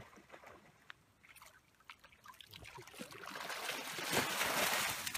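Water splashing and streaming as a cast net is hauled in through shallow water onto the bank. It starts about three seconds in, after a few light knocks, and grows louder toward the end.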